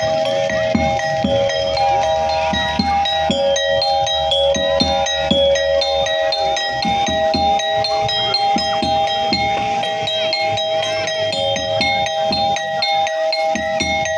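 Music of bright, ringing chime-like metallic notes over a held chord and a steady drum beat.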